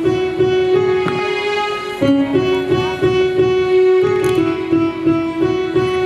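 Electronic keyboard playing a slow melody of held notes that step up and down, over a steady beat.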